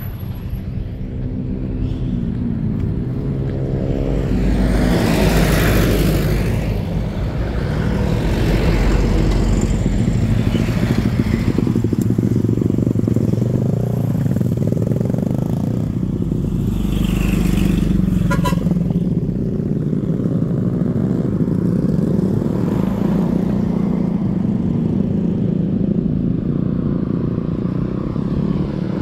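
Heavy vehicle engine running steadily, its note rising a few seconds in, with loud whooshes about five and seventeen seconds in and a short rattle of clicks about eighteen seconds in.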